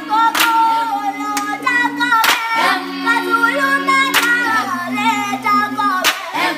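A group of children singing a song together in several voices, clapping their hands in time with a sharp clap about every two seconds.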